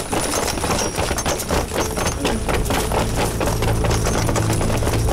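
A squad of soldiers running in on foot: many quick, overlapping footsteps. A low steady drone comes in near the end.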